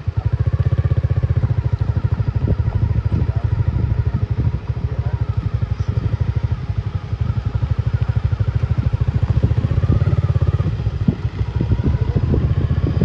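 A vehicle engine running close to the microphone, a fast low pulsing that swells and eases as the throttle changes. Scattered knocks and rattles from the rough dirt track sound over it.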